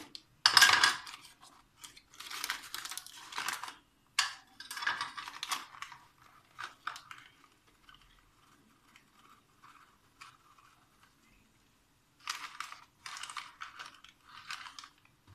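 Paper packaging of baking powder being handled and torn open, crinkling and rustling in several bursts, with a quieter stretch of a few seconds in the middle.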